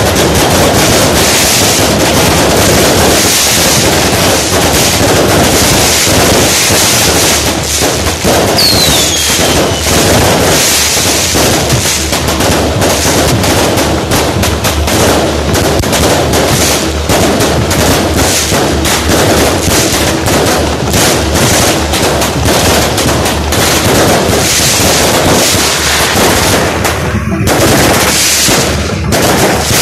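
A row of fireworks boxes firing together: a dense, continuous rapid crackle of shots and bangs. A short falling whistle cuts through about nine seconds in, and near the end the shots begin to thin out with short gaps between them.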